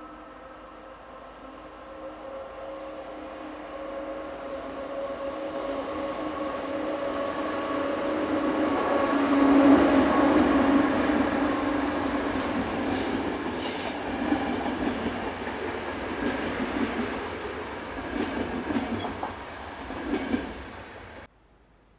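A train approaches and passes, loudest about ten seconds in. A steady hum of several tones is heard throughout, and wheels clack over the rail joints as the cars go by. The sound cuts off abruptly about a second before the end.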